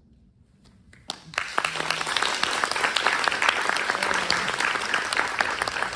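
Audience applause, breaking out suddenly about a second in after a brief near-silent pause, then many hands clapping steadily.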